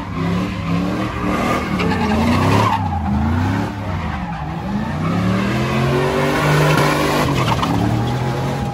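A car engine revving hard, its pitch rising and falling again and again, with tires skidding on pavement.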